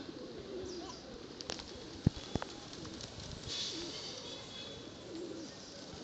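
A flock of feral rock pigeons cooing, low soft coos repeating again and again, with two sharp clicks about two seconds in.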